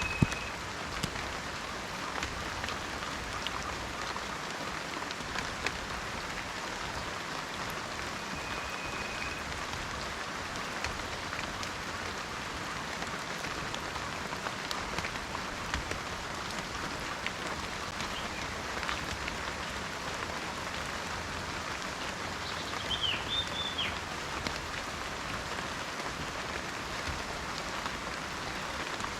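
Steady rain falling in a forest, with scattered drops landing close by and a few short, high bird chirps near the end.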